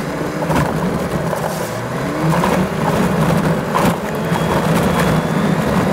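Toyota Land Cruiser driving over a gravel and black-sand track, heard from inside the cab: a steady engine drone with tyre and road noise, broken by a few short knocks and rattles from bumps.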